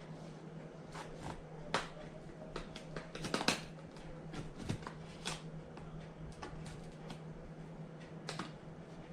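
Cardboard box and packaging being opened and handled: scattered rustles, scrapes and clicks, the loudest about two seconds in and again about three and a half seconds in.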